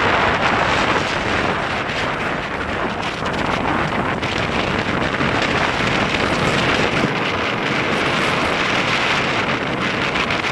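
Strong wind blowing across the microphone: a loud, steady rush of noise that swells and eases a little.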